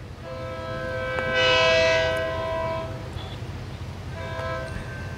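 Approaching freight locomotive's air horn sounding a chord of several notes in two long blasts. The first swells louder midway; the second starts about four seconds in and is still sounding at the end.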